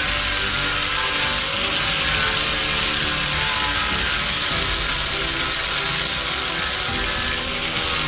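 Handheld electric angle grinder running under load as its disc sands wooden wall planks, a steady high whine over gritty noise. The whine eases briefly near the end.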